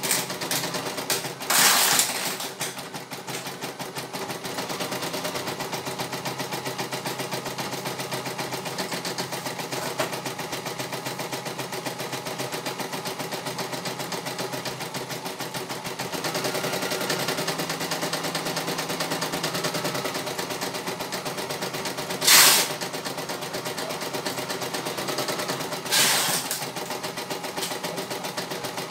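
CNY E900 computerised embroidery machine stitching a design: a fast, even rattle of the needle, broken by three short, louder bursts of noise, one about two seconds in and two near the end.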